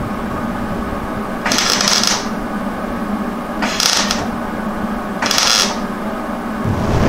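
MIG welder laying tack welds on a floor-pan patch: three short bursts of the arc, each about half a second, over a steady low hum. The old floor metal being welded to is paper thin and prone to blowing holes.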